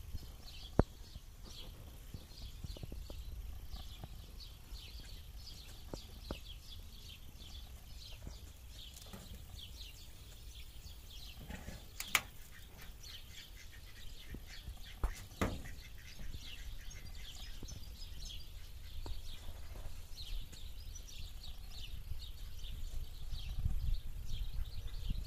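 Small birds chirping over and over, with a steady low rumble underneath and a few sharp clicks, the loudest about twelve seconds in.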